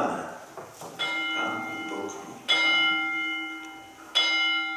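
Altar bell struck three times during the elevation of the host at the consecration, each strike ringing on with a clear, slowly fading tone.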